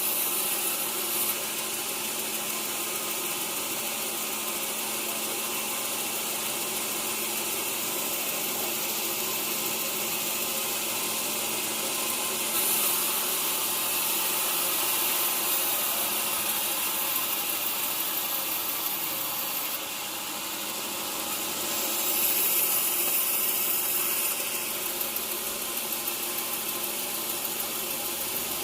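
Sawmill saw running on teak wood, a steady machine hum. Brighter, hissier stretches come and go about halfway through and again later.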